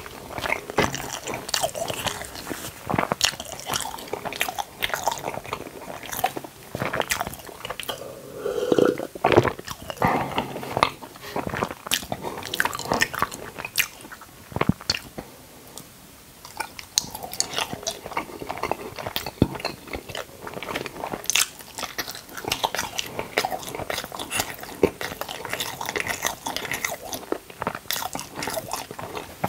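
Close-miked eating: biting into and chewing a soft white log-shaped snack, with many small irregular crackles and clicks, and a quieter pause about halfway through.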